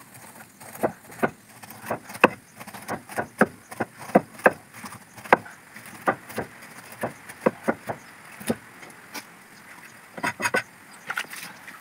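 Cleaver chopping pineapple on a wooden chopping board: irregular sharp knocks, about two a second, with a quick cluster of cuts near the end.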